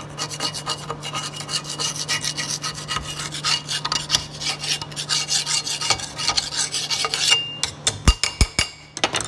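A metal file rasping back and forth in a bolt hole of a rusty steel mixer-wagon knife, in rapid irregular strokes that clean out the hole, over a steady low hum. There are a couple of low knocks about eight seconds in.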